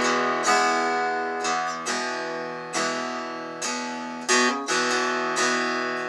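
Acoustic guitar strumming chords, each left to ring and fade before the next, about one a second.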